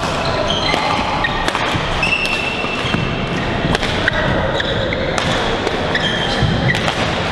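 Badminton play on a sports hall court: rubber-soled shoes squeaking briefly on the court floor many times, mixed with sharp clicks of rackets striking the shuttlecock.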